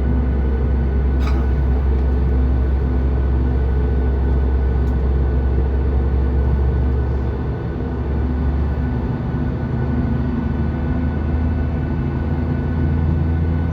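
Steady drone of a Boeing 737 MAX 8's CFM LEAP-1B turbofan engines heard inside the passenger cabin, with a steady whine over a deep hum and a brief click about a second in.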